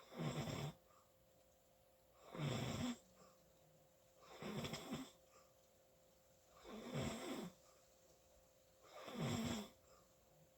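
A sleeping person snoring: five snores at a slow, even pace, one about every two and a half seconds, each lasting under a second.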